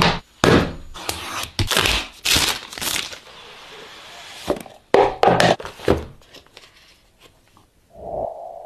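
Hexagonal cardboard gift box being handled and opened: a series of sharp taps and thunks with sliding, scraping cardboard, then a second cluster of knocks. Near the end comes a steady tone lasting about a second.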